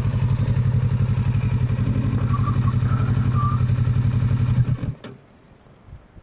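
Kawasaki Versys 650's parallel-twin engine idling steadily with an even pulsing beat, then cutting out abruptly about five seconds in.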